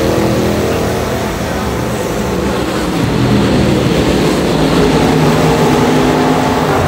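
Racing car engine running, its note dipping slightly and then rising and holding, a little louder, from about three seconds in.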